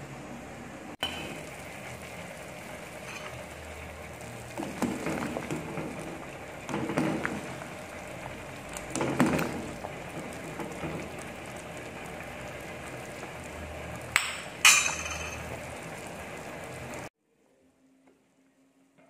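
Chicken soup boiling in a stainless-steel pot with a steady bubbling hiss, stirred with a metal ladle that scrapes and clinks against the pot. There are two sharp clinks near the end, then the sound cuts off suddenly.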